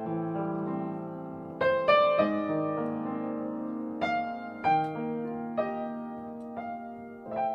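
Piano playing slow, gentle music: chords struck and left to ring, with new notes coming in every second or so.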